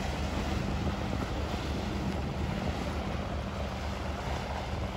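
Heavy wind buffeting the microphone over breaking surf, with the steady low drone of a Mercury outboard motor driving a small aluminium fishing boat through the waves.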